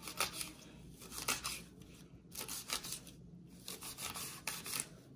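Kitchen knife chopping fresh thyme on a wooden cutting board: an irregular series of quick crisp cuts, coming in short runs of several.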